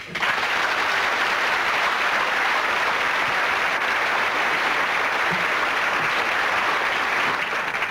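Studio audience and panel applauding steadily, starting all at once and dying away near the end.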